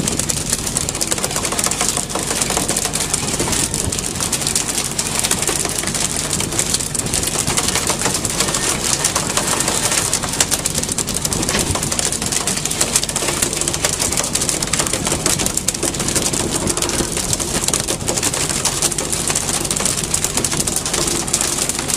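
A boat engine running steadily under a constant rushing hiss of wind and water.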